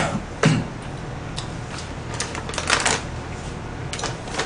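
Tableware and plastic handling at a meal: two sharp knocks near the start, then scattered clicks of chopsticks on plastic takeout containers and brief crinkling of a plastic wrapper.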